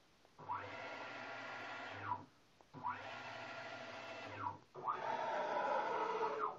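Stepper motors of a homemade Grbl-controlled CNC mill jogging its axes: three moves of under two seconds each. Each whine rises in pitch as the axis speeds up, holds steady, then falls as it slows to a stop; the third move is louder.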